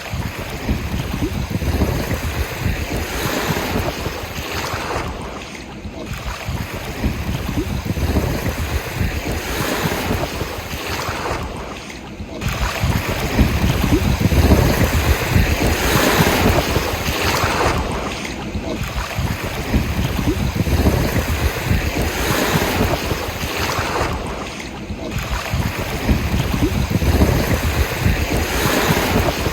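Ocean surf breaking and washing ashore, swelling and easing every few seconds, with wind rumbling over it.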